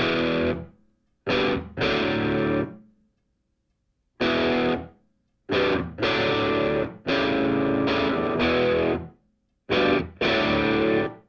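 Distorted electric guitar music: loud power chords that break off into short silences between them, in a stop-start pattern.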